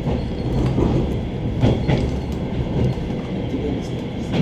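Suburban train running between stations: a steady rumble of wheels on rail, with the clack of the wheels passing over rail joints, a pair of clacks in the middle and another near the end.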